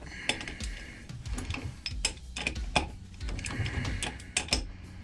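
A metal hand tool clinking, clicking and knocking against the parts of a marine diesel engine being dismantled: a string of sharp irregular clicks, over quiet background music.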